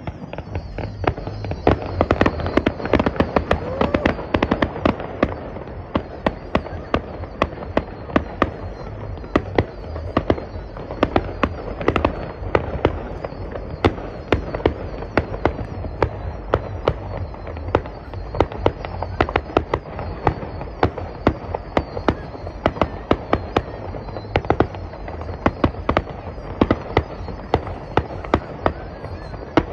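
Aerial fireworks display going off: a dense, continuous run of bangs and crackles, several a second.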